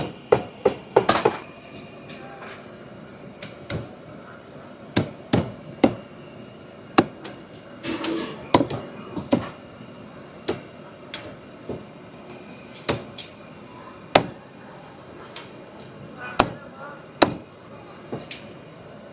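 A kitchen cleaver chopping on a chopping board: irregular sharp knocks, some in quick runs of two or three.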